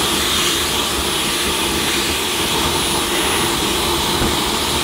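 Dyson V11 cordless stick vacuum running steadily through its crevice tool, sucking dust and fluff out of the gap in a vacuum cleaner's beater bar. A steady rush of air with a thin, high whine on top.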